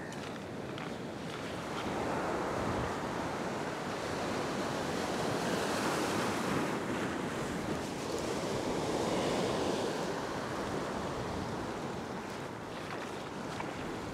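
Ocean surf washing across a flat rock platform, the wash of foaming water swelling and easing twice as waves roll in and drain away.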